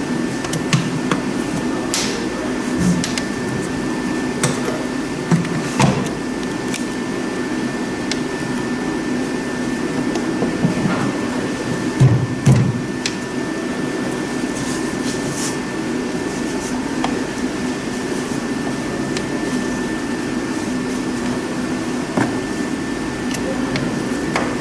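Scattered plastic knocks and clicks as the upper cover of a car's air-filter housing is handled and fitted, the loudest about halfway through, over a steady background hum.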